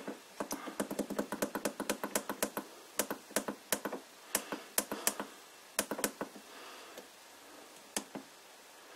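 Keypad buttons on an NF-9000 variable frequency drive clicking as they are pressed over and over to step the carrier frequency setting up. The clicks come in a quick run for the first two and a half seconds, then more spaced, with a last one about eight seconds in.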